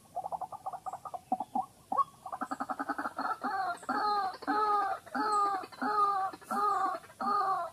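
White-breasted waterhen calling: a few short notes, then a quick stuttering run about two seconds in that breaks into a steady series of longer rising-and-falling notes, about two a second, growing louder.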